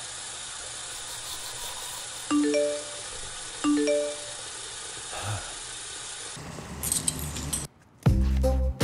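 Two short phone text-message alert chimes about a second and a half apart, each a quick click followed by a few rising notes, over a steady hiss. Near the end, after a brief gap, music with a heavy beat starts.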